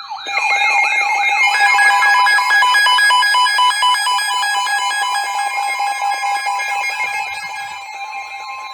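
Several weather alert devices sounding their alarms at once for a severe thunderstorm warning: loud overlapping alarms of quickly repeating rising sweeps, pulsing beeps at different pitches and a steady tone, with the steady tone standing out near the end.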